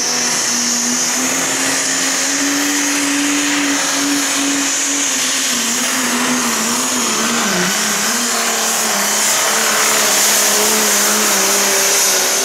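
Pro Stock pulling tractor's turbocharged diesel engine running flat out under load as it drags a weight-transfer sled. The engine note holds steady, then wavers and sinks slowly in pitch over the second half, with a strong high whine above it throughout.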